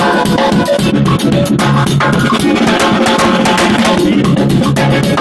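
Live instrumental jazz-fusion band playing loudly: a drum kit drives a busy groove, with electric guitar and keyboards over it.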